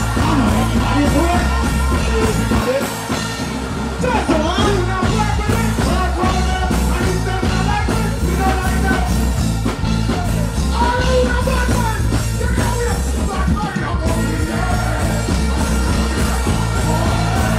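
Live dancehall reggae played loud over a PA: a heavy bass riddim with deejays chanting and singing on microphones. The bass cuts out briefly twice.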